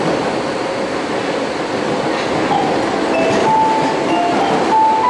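Osaka Metro 22 series subway train running, heard from inside the car: steady wheel and rail noise, joined about halfway in by the Hitachi GTO-VVVF inverter's tones stepping up in pitch as the train accelerates.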